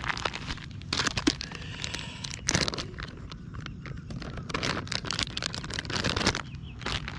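Plastic soft-bait packet crinkling and rustling in the hands as it is pulled open, in short irregular crackly bursts.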